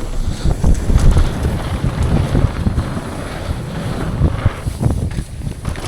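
Downhill mountain bike ridden at speed: loud wind rushing over the camera microphone, with low rumbling and scattered knocks and rattles from the bike on rough trail.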